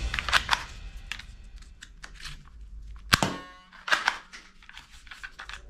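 Plastic toy guns clacking and knocking against each other as they are handled in a plastic tub. A sharp single click about three seconds in rings briefly.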